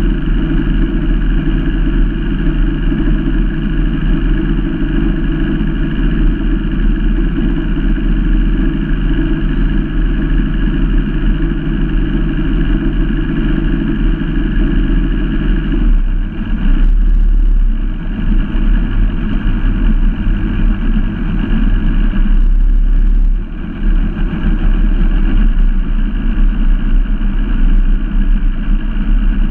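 Performance boat's inboard engine running at low cruising speed, a steady deep rumble that shifts and thins about halfway through, with two brief dips in level after that.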